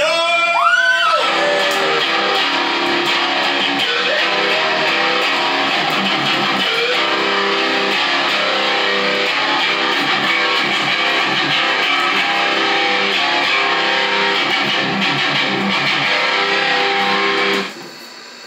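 Electric guitar playing continuous rock music as wrestler entrance music, cutting off abruptly about a second before the end.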